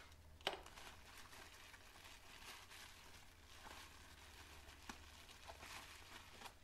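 Faint rustling and crinkling of plastic bubble wrap being handled and peeled off a bicycle crank arm, with a sharp tap about half a second in and a few lighter ticks later.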